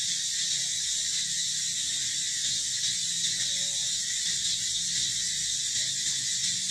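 Steady, high-pitched insect chorus, like cicadas, running without a break, with a low hum beneath it.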